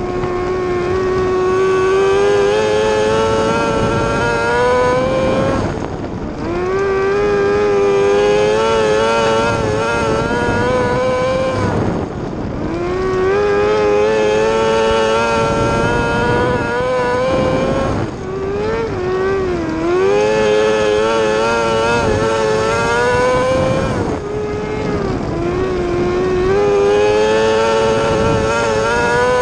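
Yamaha R6 inline-four motorcycle engine powering a micro sprint car, heard onboard at racing speed. Its pitch climbs steadily for about five seconds, then drops sharply as the throttle comes off, in a cycle that repeats about every six seconds, with a wavering pitch in one dip near two-thirds of the way in.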